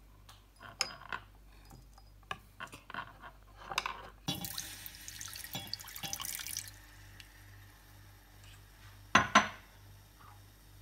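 Light clicks and scrapes as chopped chillies are pushed off a wooden board with a cleaver into a small ceramic bowl. About four seconds in, water is poured from a glass measuring cup into a small enamel pot for about two seconds. Two sharp knocks come near the end.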